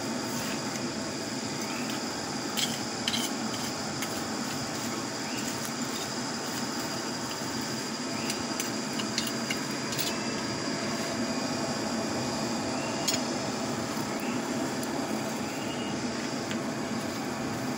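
Charcoal forge fire under a steady air blast, an even rushing noise, as kored hoe blades heat toward red for hardening. A few light metallic clinks of tongs against the blades.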